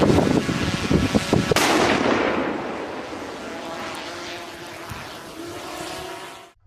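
A loud rumbling blast with a sharp crack about a second and a half in, then a long rumble that slowly dies away.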